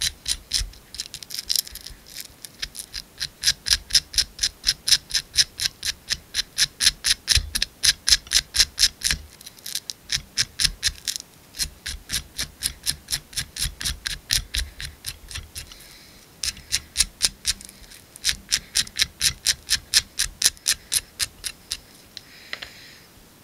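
Velcro strip brushed repeatedly along a fly's dubbed body, a scratchy rasp of about three strokes a second with a couple of short pauses; it teases out the dubbing fibres to rough up the body. The strokes stop about a second before the end.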